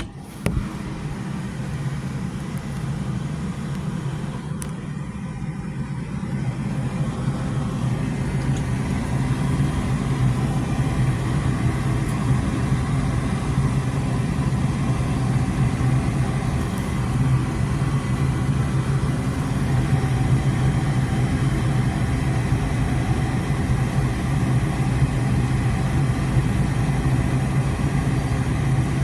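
Goodman gas furnace's draft inducer motor starting suddenly and running with a steady hum, the first stage of the furnace's start-up sequence after the thermostat calls for heat. The hum grows slowly louder as it runs.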